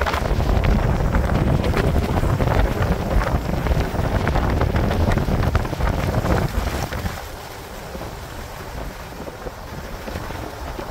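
Wind buffeting a microphone held out of a pickup's window, over tyre and road noise as the truck drives in four-wheel drive on a muddy clay road, with scattered clicks. The heavy rumble drops away about seven seconds in, leaving a quieter hiss.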